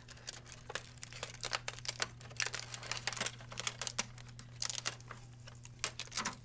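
Blue packing tape being peeled and a cardboard restraint pulled out of a printer's plastic paper input tray: irregular crackling, crinkling and small clicks and taps.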